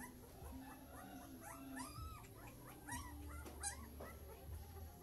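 Faint, high-pitched animal whining: a string of short calls that bend up and down, packed closest together in the middle, over a steady low hum.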